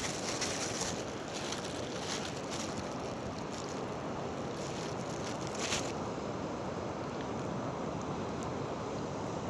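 Steady rush of wind on the microphone over shallow sea water, with several short hissing splashes in the first six seconds.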